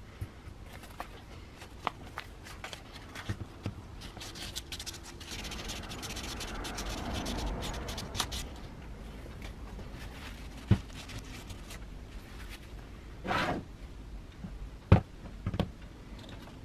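Angle grinder parts being handled during disassembly: scattered clicks and small knocks, with a scraping, rubbing stretch around the middle as the armature is worked out of the gear housing, and a few sharper knocks near the end as parts are set down.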